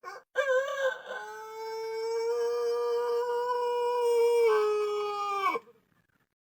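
White Pelung rooster crowing: one long crow of about five seconds that opens with a short wavering note, settles into a long held tone, drops a step lower and falls away at the end.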